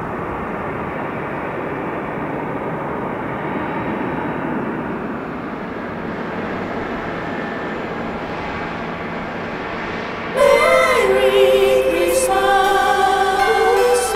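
Steady jet-engine noise of a Boeing 747 climbing out after takeoff. About ten seconds in, choir music starts abruptly and is louder.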